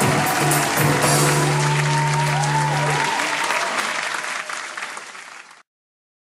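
A song ends on a held low note while the audience claps and cheers; the applause then fades away and cuts off to silence about five and a half seconds in.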